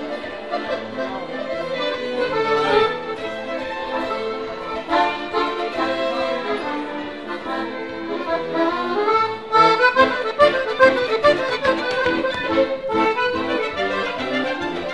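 Live accordion and violin duo playing a tune, the accordion most prominent.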